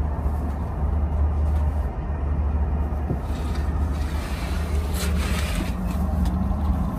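Steady low rumble inside a CRH2E high-speed sleeper train car. From about three to six seconds in comes a louder, brighter rustle as a hand pulls a fabric berth curtain.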